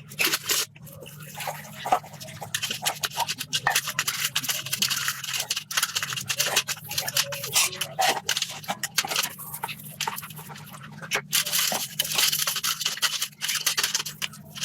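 Rapid, irregular scraping and brushing strokes, as of hand work on a hard surface, over a steady low hum.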